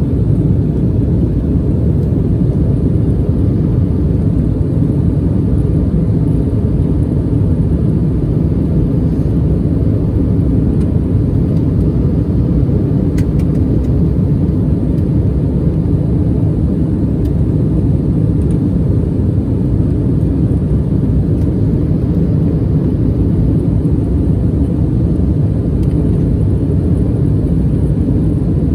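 Steady low rumble of cabin noise inside an Embraer E175 airliner climbing after takeoff: its two GE CF34-8E turbofan engines at climb power, mixed with the rush of air over the fuselage.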